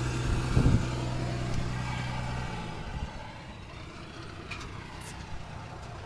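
A vehicle engine idling with a steady low hum that stops about two and a half seconds in, with a short knock near the start and a few faint clicks later.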